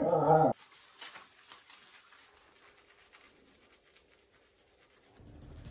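A dog's howl trails off about half a second in. After it come faint soft rubbing and ticking sounds of hands lathering a small dog's wet, soapy fur, and a low steady hum comes in near the end.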